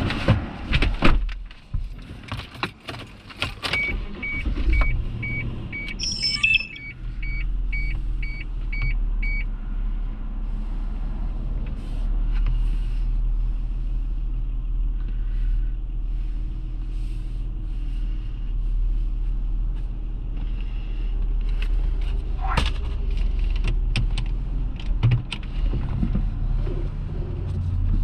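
Vehicle cabin sounds: clicks, knocks and key jangling, with a warning chime beeping about one and a half times a second for several seconds. About seven seconds in, a steady low engine idle hum sets in and runs on, with a few more clicks near the end.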